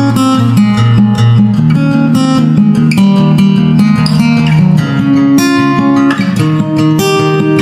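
Background music of plucked and strummed acoustic guitar over a steady bass line, with notes changing every fraction of a second.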